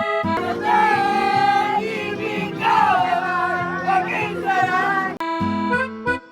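Background music: an accordion tune, with a singing voice carrying the melody for most of it and the accordion alone coming back near the end.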